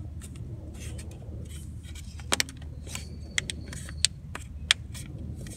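A handful of sharp plastic clicks and taps as the new cap of a BMW X5 crankcase vent valve is aligned and pressed onto its clips, the loudest near the end, over a steady low rumble.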